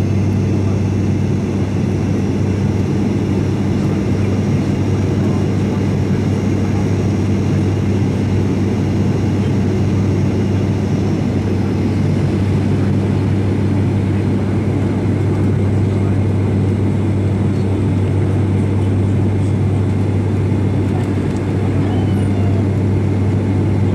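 Cabin noise of an ATR 72 turboprop airliner in flight: the engines and propellers make a loud, steady drone with a strong low hum and its overtone, and it holds constant throughout.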